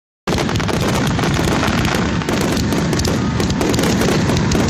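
Fireworks finale: a dense, continuous barrage of overlapping bangs and crackling bursts with no pauses between them, cutting in abruptly.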